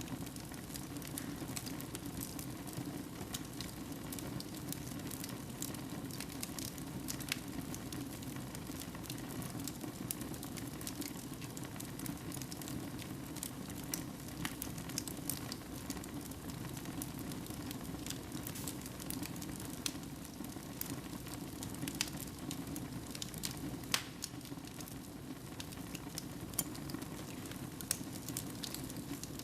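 Fire burning in a fireplace: a steady low rush of flame with frequent sharp crackles and pops, one louder pop late on.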